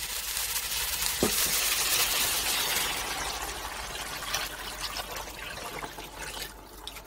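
Tap water poured from a pot into a hot roasting pan around a seared beef roast and vegetables: a steady splashing pour that fades toward the end, with a short clunk about a second in.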